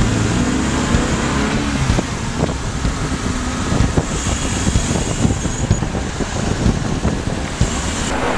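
Car engines running on the road, one rising in pitch as it accelerates over the first couple of seconds, with tyre and road noise.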